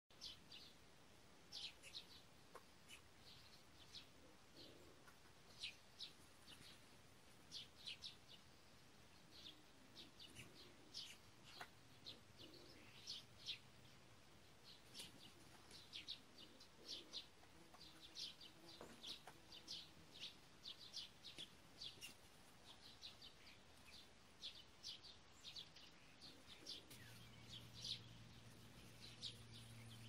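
Faint chirping of small birds: short, high chirps, singly and in quick clusters, scattered irregularly throughout.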